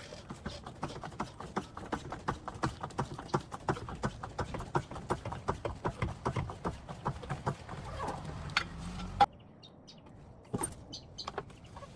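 A car jack being worked to lift a 2004 Honda CR-V, giving a steady run of clicks at about three or four a second that stops suddenly about nine seconds in. A few scattered clicks and knocks follow near the end.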